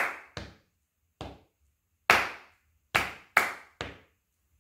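Hand claps beating out a counted rhythm exercise: sharp single claps and quick pairs of claps separated by gaps, some louder than others.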